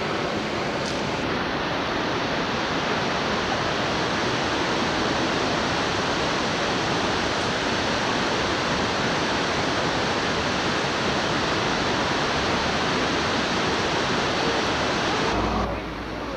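Steady, loud rush of Niagara's Horseshoe Falls, water pouring over the brink. Near the end it gives way to a quieter low rumble.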